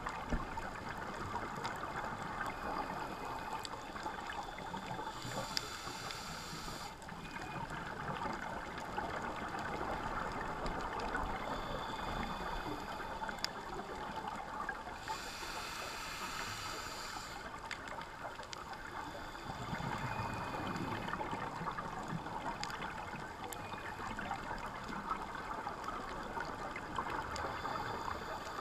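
Underwater sound of a scuba dive heard through a camera housing: a steady bubbling, crackling hiss with scattered clicks. The diver's regulator breathing gives two longer hissing breaths, about five and fifteen seconds in.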